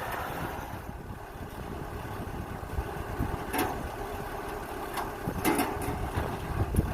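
Kubota DC-105X combine harvester's diesel engine running steadily at low revs while the machine is manoeuvred, with a few sharp knocks in the second half.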